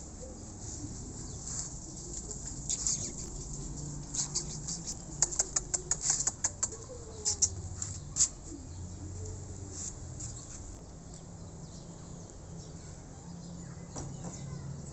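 A quick run of sharp, crackling clicks, a dozen or so over about four seconds, starting about four seconds in, over a faint steady outdoor background.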